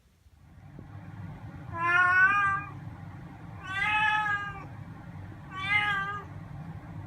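Domestic cat meowing three times, about two seconds apart, each meow a drawn-out call that falls slightly in pitch at the end. A steady low hum runs underneath.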